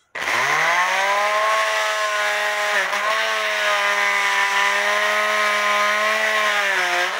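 Master Mechanic oscillating multi-tool switched on, its pitch climbing quickly and settling into a steady, loud buzz as its blade cuts through the glue along the edge of a cuckoo clock's bellows in the wooden case. The pitch sags briefly about three seconds in as the blade bites. The blade is nearly worn out.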